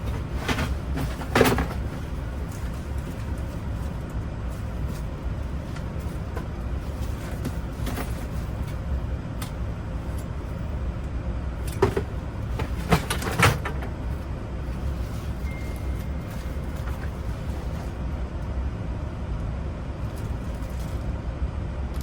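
Small clicks and taps from lock wafers and tools being handled while a Silverado ignition lock cylinder is rekeyed: a pair near the start and three more about twelve to thirteen and a half seconds in, over a steady low rumble.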